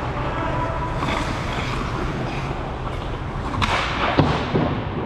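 Ice hockey on a rink: skate blades scraping the ice over a steady low rumble, with a hissing scrape about three and a half seconds in and a sharp clack of stick or puck just after.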